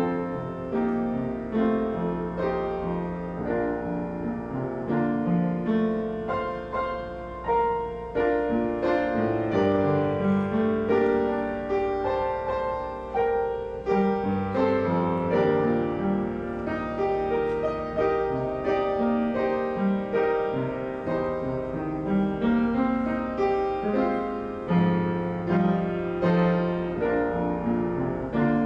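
Instrumental piano music with held chords and a moving melody line.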